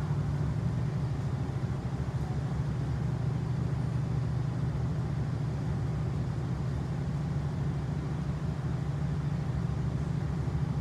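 Chiltern Railways class 68 diesel-electric locomotive's engine under power as the train pulls out, a steady low drone with a fine pulsing throb.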